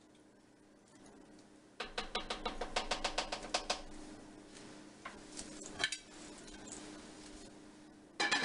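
Spoon clinking and scraping against the crock of a slow cooker as chili is stirred: a quick, even run of strokes, about six a second, starting about two seconds in, then a few scattered knocks and a sharper clink near the end.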